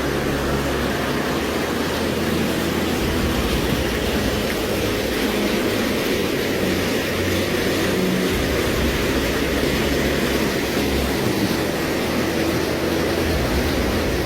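A motor vehicle running steadily, with a constant rushing noise and a low engine hum that hold without change.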